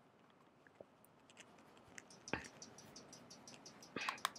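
A makeup brush working face powder: faint brushing with scattered light clicks and taps, and a louder cluster of clicks about four seconds in.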